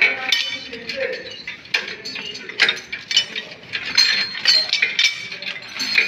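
Metal clinks and clicks of a spark plug wrench being fitted and turned on a small tiller engine's spark plug: irregular sharp taps, some with a brief metallic ring.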